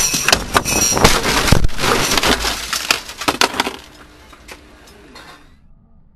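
Microcar's plastic and metal body crashing nose-first onto asphalt, heard from inside the cabin: loud crunching, cracking and rattling starts suddenly and lasts about three and a half seconds, then dies away.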